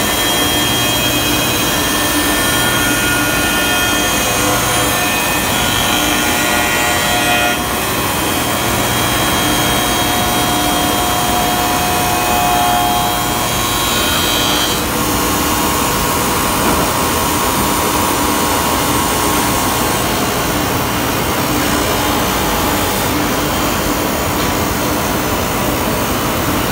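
Woodmaster four-spindle CNC copy shaper with two cutter heads and two sanding drums, cutting curved wooden workpieces. It makes a steady, loud machining noise, with high whines that change pitch a few times as the cutters move along the wood.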